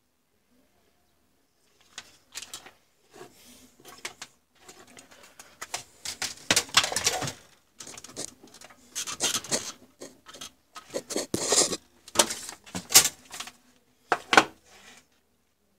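Handling noise on a workbench: irregular crackling and rustling with small clicks as wires, a connector and packaging are moved about, coming in uneven bursts for most of the stretch.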